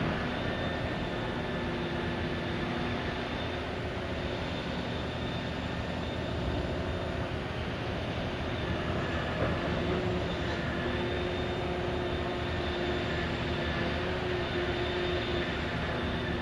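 Liebherr P995 backhoe dredger working, a steady low rumble with a steady hum and a faint higher whine over it.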